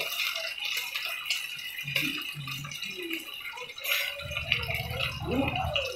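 Striploin steaks frying in hot oil and sauce in a pan, a steady sizzle crackling with many sharp spattering pops. A low hum joins about four seconds in.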